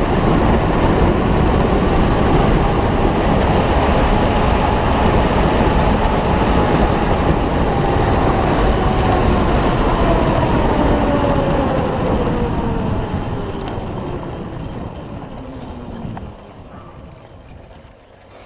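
Wind rushing over the microphone while riding a bicycle, with a faint whine from the moving bike that falls in pitch as it slows. Both fade over the last several seconds as the ride eases off.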